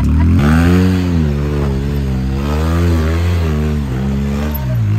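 Side-by-side UTV engine revving up and down under load as it crawls up a rock ledge, the engine note rising and falling several times with the throttle, dipping low near the end before picking up again.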